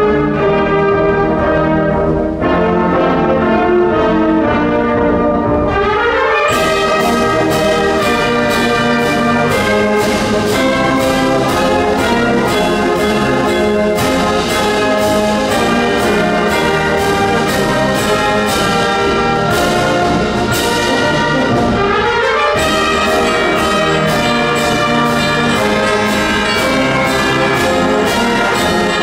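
A wind band playing a march: held brass chords at first, then about six seconds in cymbals and drums join on a steady march beat.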